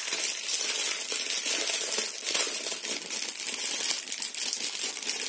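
Clear plastic packaging being opened and handled, a continuous crinkling and rustling of plastic.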